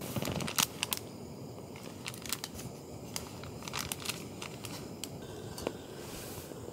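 Close handling noises: a brief rustle, then irregular clicks, taps and crinkling as small camping gear is handled inside a tent.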